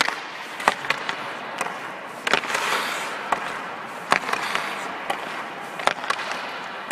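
Hockey stick blade clacking against the puck and the ice during fast stickhandling: sharp, irregular clicks a second or so apart. Skate blades scrape on the ice, loudest about two to three seconds in.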